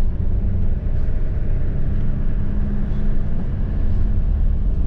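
Engine and road rumble of a vehicle driving through city streets, heard from inside the cabin, with a steady engine hum that fades about four seconds in.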